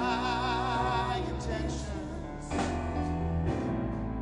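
A live worship song: a singer holds a long note with vibrato near the start, over keyboard accompaniment and steady low notes.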